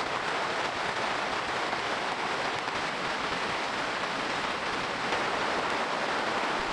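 Steady rain falling: an even hiss with no breaks.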